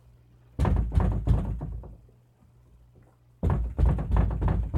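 Phone being handled close to its microphone: a dense run of knocks and rubbing in two bursts, starting about half a second in and again about three and a half seconds in.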